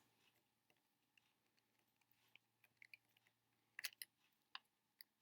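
Faint, scattered small plastic clicks and ticks from handling a disassembled GAN 356X speed cube and its plastic adjustment tool, with a couple of sharper clicks about four seconds in.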